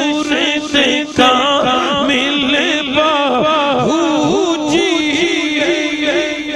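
Male devotional chanting through a public-address microphone: a steady held note with a wavering, ornamented melody turning quickly above it.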